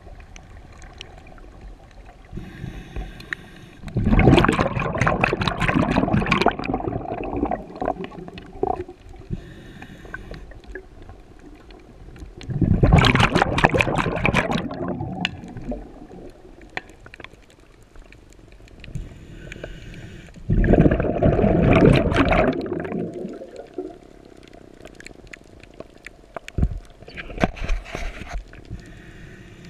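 Scuba diver breathing through a regulator underwater: four gurgling rushes of exhaled bubbles, roughly every eight seconds, each lasting two to three seconds, with a fainter hiss between them.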